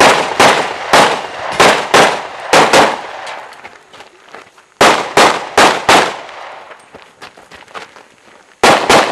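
Handgun shots fired in quick strings: about seven rapid shots in the first three seconds, a pause of about two seconds, four more quick shots around the middle, then two more near the end, each shot with a short echoing tail.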